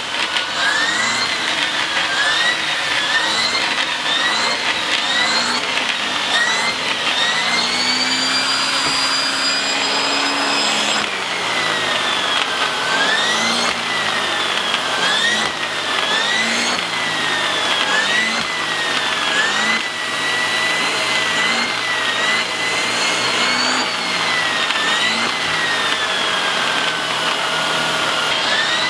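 Vacuum cleaner running as its nozzle is pushed back and forth over a mattress and bedspread. Its motor whine dips and rises in pitch about once a second with the strokes. For a few seconds near the middle it holds a higher, steady whine.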